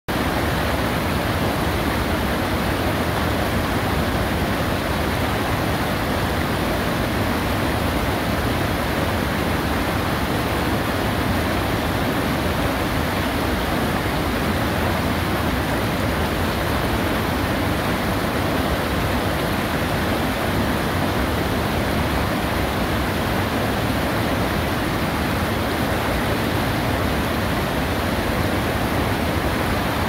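Mountain river rushing steadily over rocks in rapids, a loud, unbroken wash of white water.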